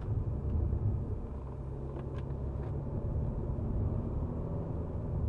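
Alfa Romeo Giulia Veloce Q4's 2.2-litre four-cylinder turbodiesel heard from inside the cabin while lapping a wet track: a steady low engine drone mixed with road noise.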